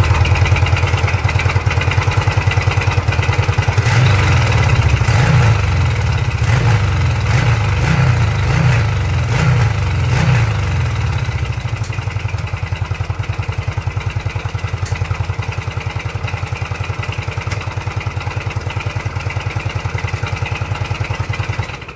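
Yamaha XVS1100 V-Star's air-cooled V-twin engine running through its exhaust: blipped up and down a few times, then settling to a steady idle with an even pulse. It cuts off suddenly at the end.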